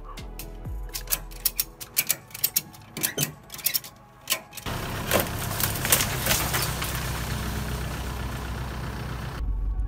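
Ratchet strap being cranked tight, its pawl clicking in a quick, irregular run of sharp clicks. About four and a half seconds in, it gives way to the steady rumble of a vehicle towing the car trailer.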